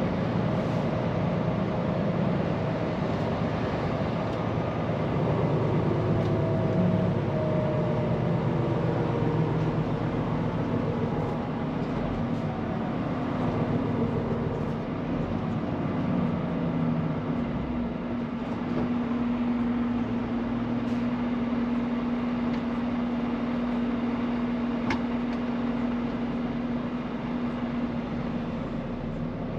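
Scania P410 truck driving, its engine and road noise running steadily. An engine drone holds at a steady pitch through the second half.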